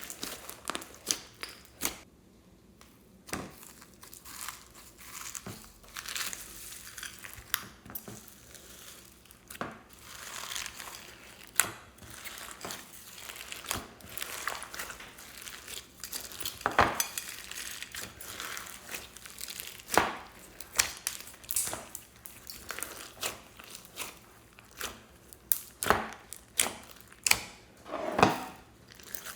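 Hands squeezing, poking and stretching slime: a run of irregular sharp clicks and pops, with a few louder ones in the second half.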